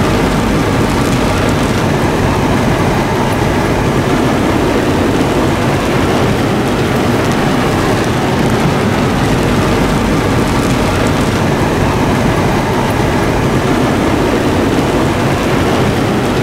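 Heavy rain falling on a moving car's roof and windshield, over the car's engine and tyres on a wet dirt track. It makes a loud, steady noise.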